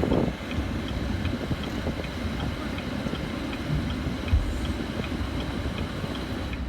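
2018 GMC Sierra's turn signal clicking in a steady tick-tock, about two to three clicks a second, over a low steady rumble from the truck. A single thump comes about four seconds in.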